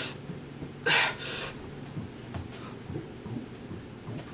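A man breathing out sharply twice in quick succession about a second in, with a faint steady low hum in the room.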